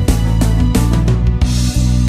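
Music: a guitar song over a steady beat of sharp drum strikes, with a heavy bass. A cymbal-like wash swells near the end.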